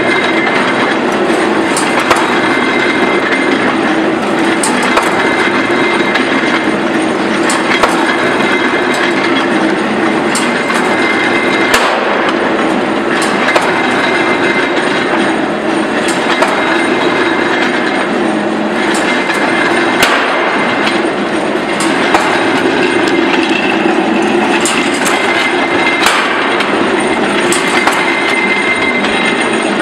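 Charcoal briquette press running: a loud, steady mechanical din from its drive, with sharp metallic clanks every second or two as it presses charcoal dust into cubes.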